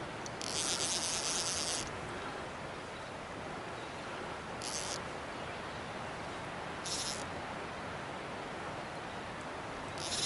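Fly reel's clicker drag buzzing as a hooked trout pulls line off: one longer run about half a second in, then two short ones, over a steady rush of river water.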